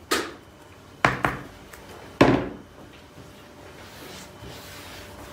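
Three knocks, about a second apart, of a plastic mixing bowl against a wooden tabletop as flour is shaken out of it; the third is the loudest. Then a faint rubbing as a hand pushes a well into the heap of flour.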